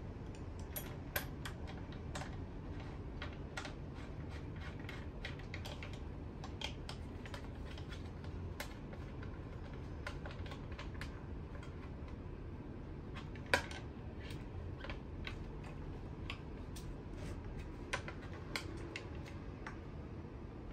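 Scattered, irregular small clicks and taps of e-bike parts being handled and fitted during assembly, with a few louder knocks, the loudest just past the middle. A low steady hum runs underneath.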